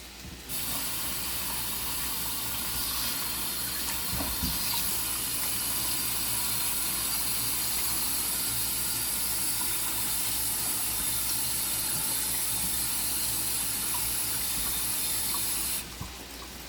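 Hot water from a kitchen tap running steadily over canned ackee in a strainer as it is rinsed. It is turned on about half a second in and shut off abruptly about a second before the end.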